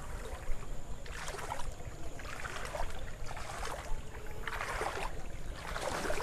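Floodwater splashing and sloshing in about four surges, over a steady low rumble.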